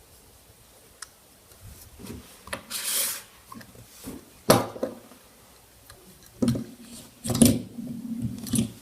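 A fidget cube being handled and played with: a short rubbing scrape, then a sharp click and several knocks and rattles.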